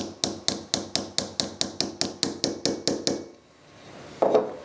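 Rapid, even light tapping, about five taps a second, fading out after about three seconds, followed by one louder knock near the end. It is typical of tapping a metal hex socket to seat it into a 3D-printed plastic knob.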